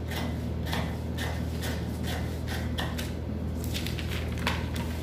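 Large fabric scissors cutting through brown pattern paper in a series of snips, about two a second, over a steady low hum. Near the end the paper rustles as the cut-out piece is handled.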